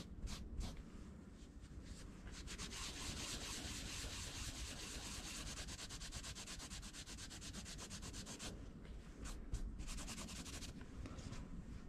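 Cloth rubbed briskly back and forth over the brass rivets of a leather knife sheath, polishing them. A faint, quick, even rubbing sets in about two seconds in and thins to a few separate strokes near the end.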